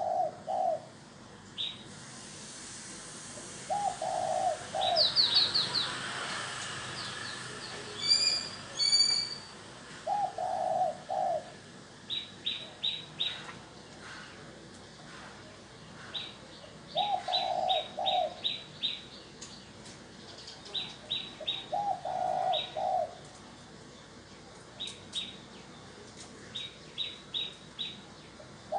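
Spotted dove cooing: a short phrase of a few low coos, repeated about every five to six seconds. Between the phrases a small bird gives quick runs of high chirps, and a rushing noise is heard for several seconds near the start.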